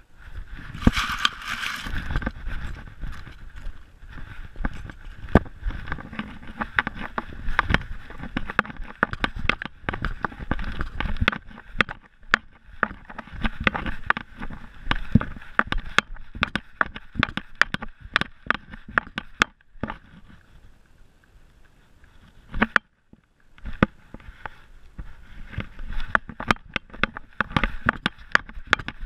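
Rapid, irregular knocking, clicking and rubbing from an action camera strapped to a running, playing dog, the camera housing jostled with every move. It goes quieter for about two seconds past the middle, then the knocking resumes.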